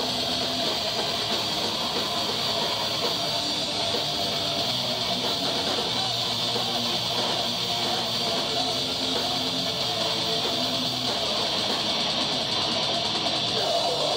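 Live metal band playing: distorted electric guitars, bass and drums, loud and dense with no breaks.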